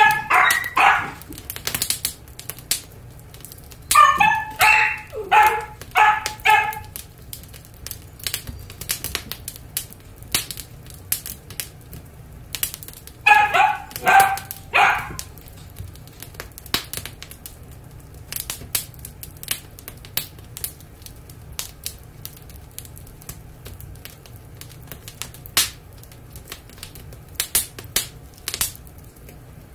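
A dachshund barking in three short bouts of several quick barks each: at the start, about four to seven seconds in, and about thirteen to fifteen seconds in. A wood fire crackles with sharp pops throughout.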